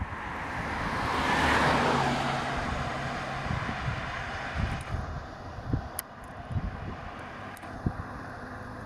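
A motor vehicle passing by on the road: engine and tyre noise swell to a peak about a second and a half in, then fade away.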